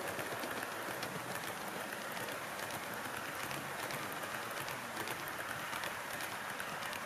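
HO-gauge model passenger train passing close by, its metal wheels rolling on the rails: a steady rushing hiss with light clicks.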